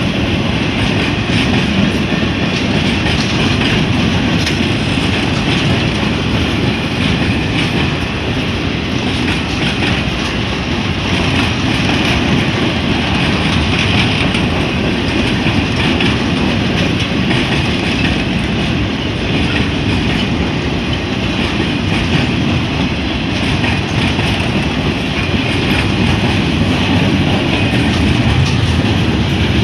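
Freight cars of a long mixed freight train rolling past on the rails: a steady rumble of steel wheels on the track.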